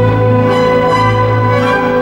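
Orchestral music with strings, playing steady held notes over a sustained bass.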